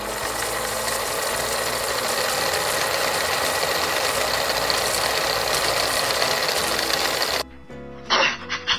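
A steady, rapid rattling countdown sound effect runs for about seven seconds, then cuts off suddenly. Just under a second before the end, chimpanzee calls begin over background music.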